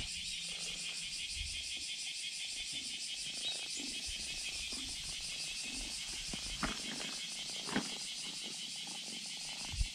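Steady chorus of insects with a fine, rapid pulsing. A few soft knocks around the middle and near the end come from the cats brushing against the camera.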